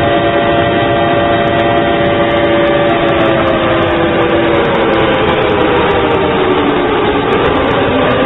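Harsh, distorted alarm sound of the kind used in made-up EAS alarms: a loud, sustained chord of several steady tones over a thick hiss. From about three seconds in, some of the tones slide slowly down in pitch, and one climbs back up near the end.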